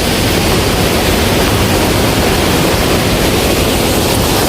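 Steady, loud rush of flowing water with no breaks.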